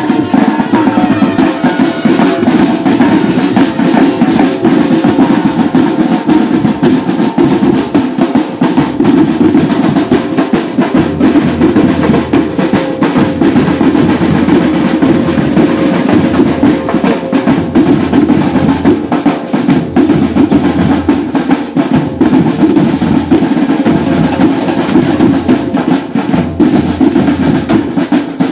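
Marching band drum line playing without a break: snare drums in rapid rolls over pounding bass drums. Bell-lyre notes ring faintly above the drums.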